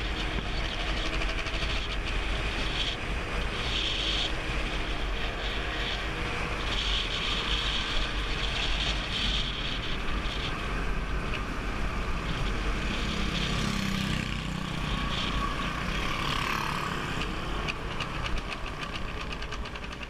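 Motor scooter riding along a street, heard from a camera mounted on the bike: a steady engine and road noise with wind rumbling on the microphone.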